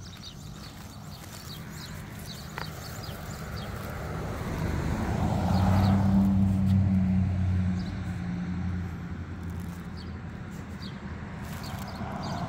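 A car driving past, its engine hum and tyre noise growing louder to a peak about halfway through, then fading away.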